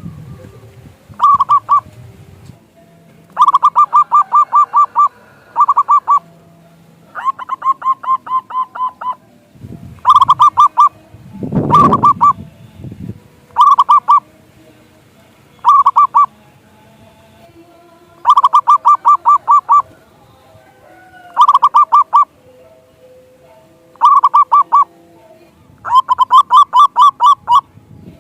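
Local zebra doves (perkutut) singing their staccato cooing song: quick runs of short clipped notes, each run repeated every one to two seconds, one run about seven seconds in higher and thinner than the rest. A brief rushing noise about twelve seconds in.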